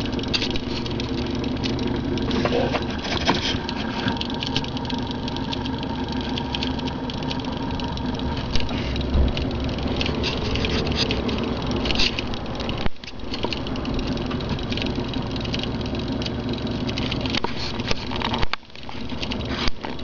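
Small homemade magnet motor running: its magnet rotor spins steadily, driven by a coil pulsed through a homemade paper-clip reed switch and a transistor, giving a steady hum with a fine rattle.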